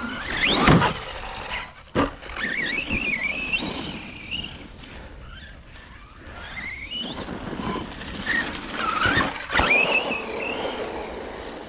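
Arrma Kraton 4S V2 RC monster truck's brushless electric motor whining, its pitch rising and falling as the throttle is worked. There are two sharp knocks, about two seconds in and again after about nine and a half seconds.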